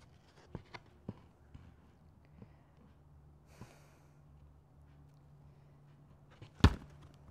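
Small clicks and knocks from a wooden jewellery box being handled, over a low steady hum. A single sharp thump about six and a half seconds in is the loudest sound.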